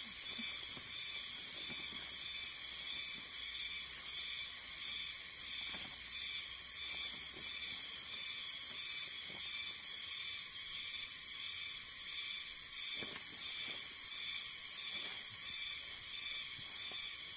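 Steady high-pitched drone of insects chirring in the forest, with faint rustling of the poncho fabric now and then.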